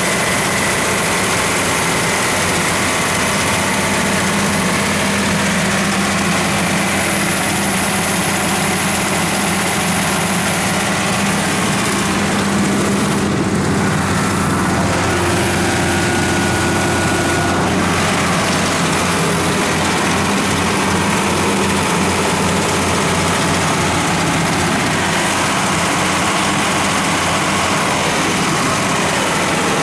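Cummins 6CTA8.3 six-cylinder turbocharged diesel engine of a 150 kW generator set running at a steady speed, a constant even drone.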